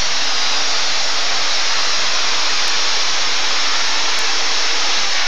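A John Deere super stock pulling tractor's engine running flat out under load as it pulls the sled. It makes a loud, steady wash of noise with no break.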